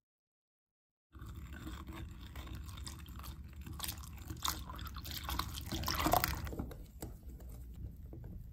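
Soufflé pancake batter being worked in a bowl with a whisk: wet sloshing with many small clicks, starting about a second in and growing louder around six seconds in before easing off.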